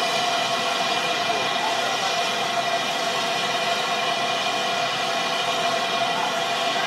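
British Railways Standard Class 5 steam locomotive standing still, with a steady, unbroken hiss of escaping steam.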